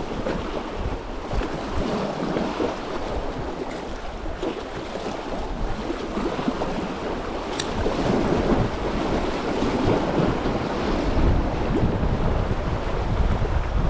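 Wind buffeting the microphone over the wash of sea waves, with one sharp click about seven and a half seconds in.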